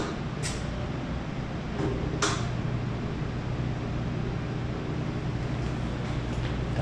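ZTrust top-load washing machine running a spin test, its motor turning the drum with a steady low hum. Two short clicks, about half a second and two seconds in. The spin works after the control board repair.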